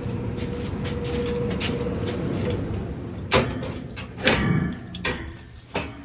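Steady running-machine noise with a faint hum that fades out over the first two seconds or so, and three sharp clunks about three, four and five seconds in.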